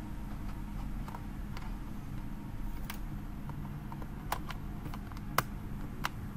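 A few scattered sharp clicks over a steady low hum, the clearest one about five seconds in.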